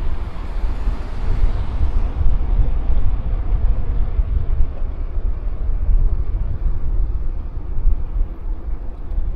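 Wind buffeting the microphone of a moving bike: a loud, uneven low rumble with a hiss of travel above it.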